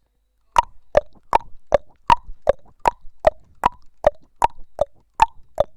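Cartoon sound effect of hollow plops in a steady rhythm, about two and a half to three a second, alternating between a higher and a lower pitch like a clip-clop.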